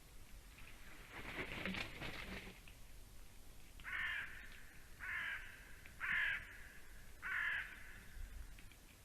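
A noisy rustling burst, then four harsh cawing calls from a crow-family bird, about a second apart.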